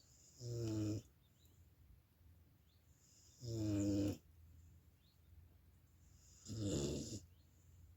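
Dog snoring in sleep: three snores about three seconds apart, each lasting under a second.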